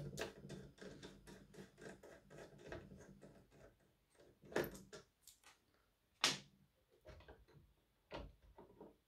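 Screwdriver turning out small screws from a circuit board inside a portable power station: a quiet run of small clicks and scrapes for the first few seconds, then a few separate louder knocks and taps.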